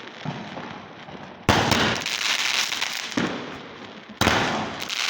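Ravindra Fireworks 'Rang Bazaar' sky shot firing its aerial shots: a loud bang about a second and a half in and another about four seconds in, each followed by a crackle that fades over a second or two.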